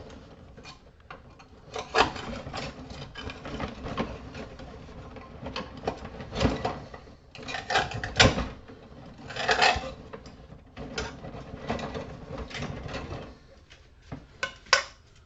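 Hands working apart a piece of scrap: irregular clicks, knocks and scraping of small parts being pried and broken loose, with one sharper knock about eight seconds in.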